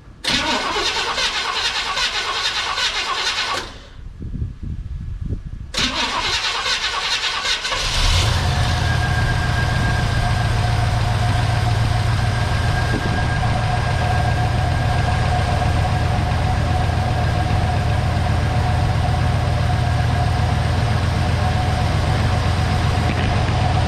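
Chevy 305 small-block V8 being cranked by its starter, twice with a short pause between, then catching about eight seconds in and settling into a steady idle. It runs evenly after a bent pushrod was replaced, sounding really good.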